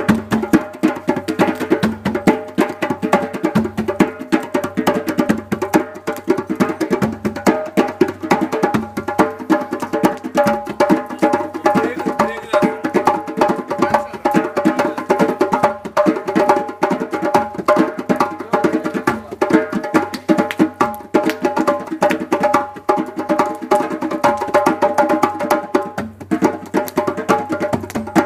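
Live jam-session music: fast, dense hand percussion with a wooden knock, over steady held tones.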